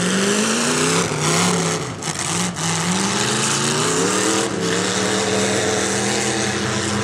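Demolition derby cars' engines revving and running hard, their pitch rising and falling repeatedly as the cars accelerate and back off.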